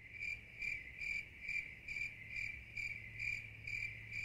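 Cricket chirping in an even rhythm, about two chirps a second, each a high pulsed trill, over a faint steady low hum.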